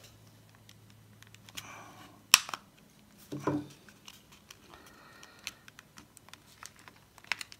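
Plastic snap-fit clips of a BT cordless phone handset's casing cracking as the two halves are prised apart. The loudest crack comes a little over two seconds in, another about a second later, then small clicks and creaks.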